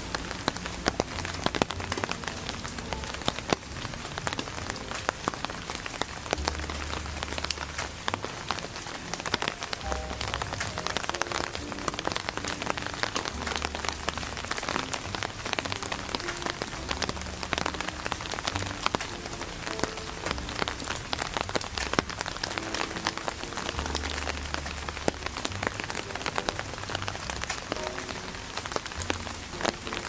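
Rain pattering steadily on a surface: a dense, even crackle of small drops.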